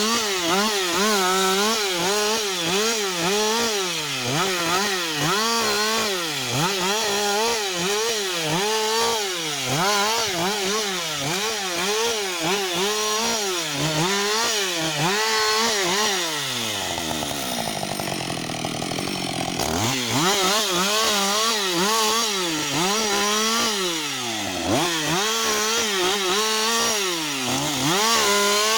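Husqvarna 560 XP two-stroke chainsaw cutting through a spruce log under load, its engine note rising and falling about once a second as the chain bites and frees. Past the middle the engine speed sinks low for a couple of seconds, then picks back up as cutting resumes.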